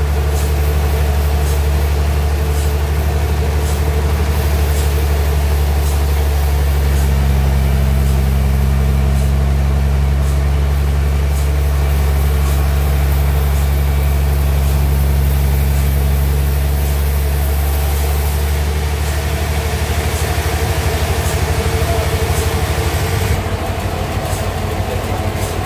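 Sawmill engine running steadily with a deep hum, its note shifting a little partway through and turning into a faster pulsing beat near the end.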